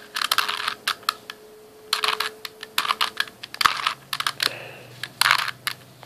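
Plastic Rubik's Cube layers being turned by hand: quick clicking and clacking in several short spurts with brief pauses between.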